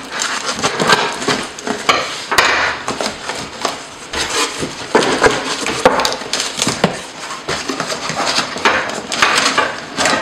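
Cardboard shipping box being opened by hand: scissors cutting through packing tape, then the flaps pulled open and folded back. The cardboard rustles and crinkles, with many irregular clicks and knocks.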